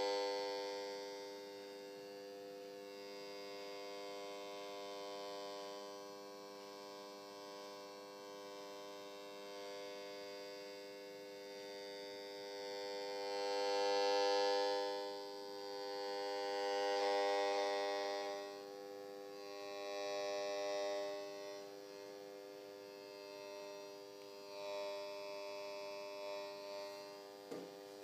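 Buzzing tone from a microwave probe's loudspeaker, swelling and fading as the probe is slid parallel to a double slit: each swell is an interference maximum and each dip a minimum. The swells come every few seconds, and the three in the middle are louder than the outer ones.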